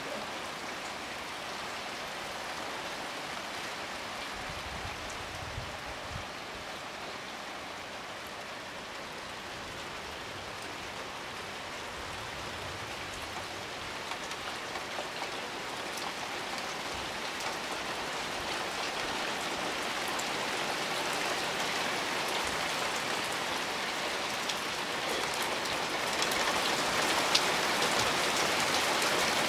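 Hard rain falling on the water of a swimming pool: a steady hiss of countless drops splashing, gradually growing louder and loudest near the end.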